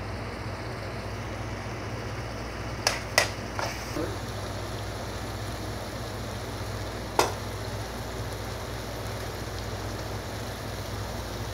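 Chicken liver and egg curry simmering and bubbling in a frying pan, a steady hiss. A few sharp clicks come about three seconds in, and one more near seven seconds.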